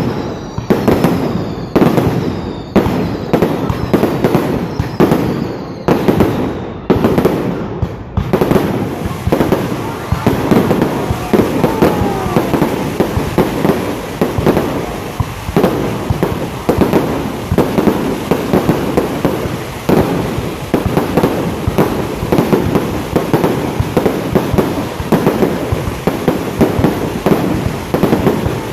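Fireworks going off in a rapid barrage: separate loud bangs about every half second for the first eight seconds, then the bangs merge into a dense, unbroken volley.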